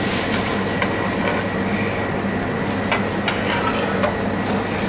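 Steady rushing kitchen noise with a low hum, and about four sharp clicks and scrapes of a metal spatula against a large steel pot of grated ash gourd cooking in milk.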